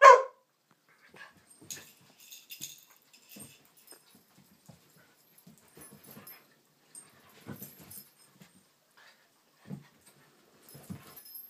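Two dogs at play: a loud bark right at the start, then scattered quiet scuffles, clicks and a few short low vocal sounds from the dogs.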